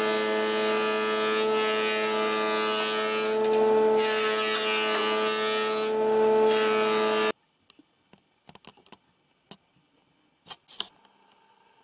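Scheppach planer-thicknesser running with its dust extraction: a steady machine hum under the hiss of the cutter block, swelling a little at times. It cuts off abruptly about seven seconds in. After that it is near quiet, with a few faint short knocks.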